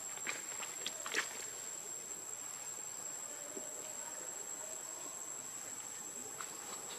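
Insects droning steadily, a constant high-pitched whine over a soft hiss, with a few light clicks about a second in.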